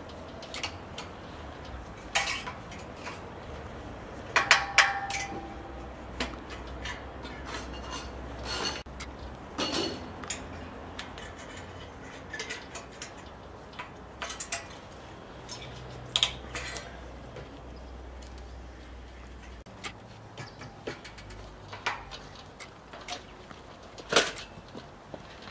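Pliers and wire clicking and clinking against a metal bar as the wire is twisted tight around a wooden post: irregular sharp clicks, with the loudest cluster and a short metallic ring about four to five seconds in.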